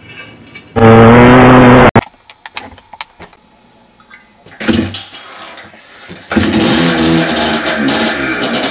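Dirt bike engine sounds in quick succession: a very loud engine rev that cuts off abruptly just before two seconds in, then scattered clicks and knocks, a short burst of engine noise, and from about six seconds in a motorcycle engine running with a fast, pulsing beat.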